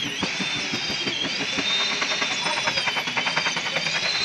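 Air impact wrench hammering on a nut under a truck: a fast, steady rattle of blows with a high air-motor whine that dips briefly near the start and again about a second in, as the tool bites on the nut.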